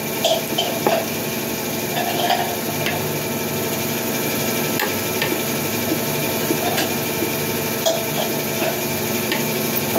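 Metal spoon and fork clinking and scraping against a ceramic plate of rice, a few scattered clicks, over a steady mechanical hum.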